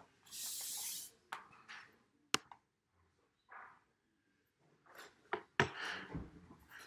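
A paintbrush scrubbing briefly across canvas, followed by scattered clicks, knocks and handling noises, one knock louder than the rest near the end.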